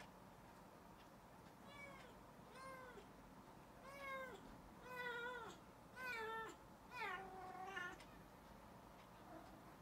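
Domestic cat meowing repeatedly, about six short calls that rise and fall in pitch, the last one longer and drawn out.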